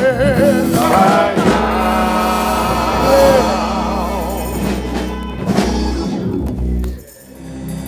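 Men's gospel choir singing, with a lead voice wavering in strong vibrato over the group and a low instrumental backing. The singing drops away suddenly about seven seconds in.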